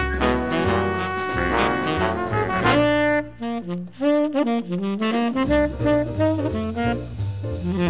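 Jazz background music with horns playing a melody over a bass line; the bass drops out for a moment in the middle.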